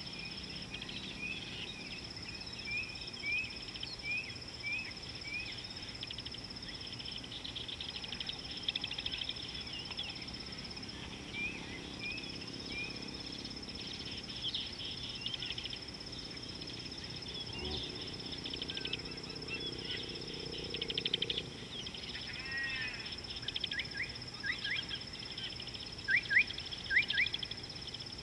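Birds calling over a steady high insect whine. Short repeated chirps come at the start, and a series of loud, quick rising whistles comes near the end. A low hum rises briefly a little after the middle.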